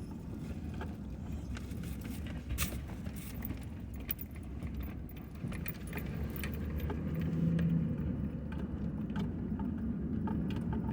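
Steady low rumble of a vehicle, with light metallic jingling and clicks on top.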